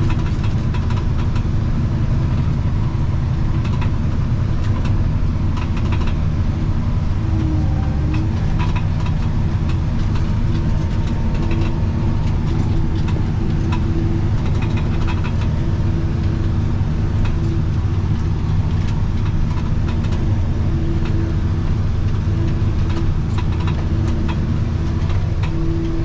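Tractor engine running steadily under load while pulling a manure spreader that is flinging out manure, heard from inside the closed cab. Scattered light clicks and ticks ride over the drone.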